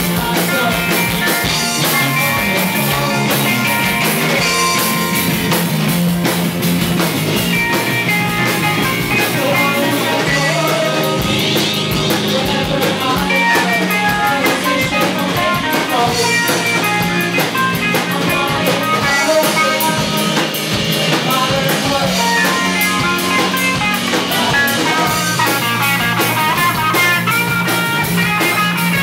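Live rock band playing: strummed acoustic and electric guitars over a drum kit.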